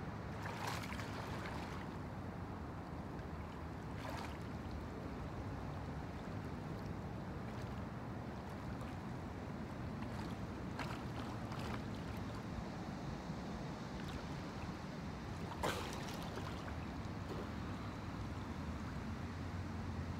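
Steady low outdoor rumble with a few short, soft water splashes, the clearest a little past halfway.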